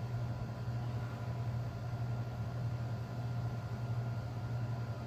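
Steady low hum with a faint even hiss: background room noise.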